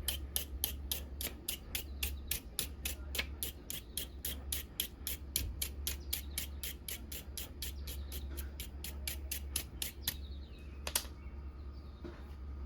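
A torch igniter clicking rapidly and evenly, about four clicks a second, stopping about ten seconds in; two louder single clicks follow.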